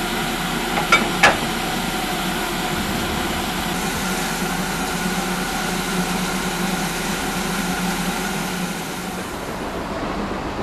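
BR Standard Class 4MT 2-6-0 steam locomotive standing in steam, giving a steady hiss and hum with a few constant tones. There are two sharp metallic clanks about a second in, and the sound thins and drops near the end.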